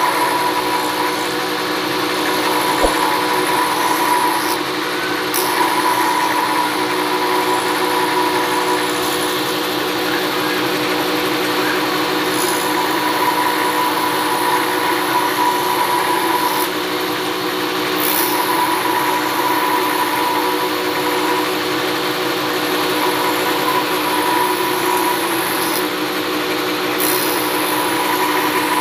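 Multifunction woodworking machine running with a grinding stone in its drill chuck, a planer blade in a jig moved evenly across the stone to sharpen its edge: a steady motor hum with the hiss of steel grinding on stone.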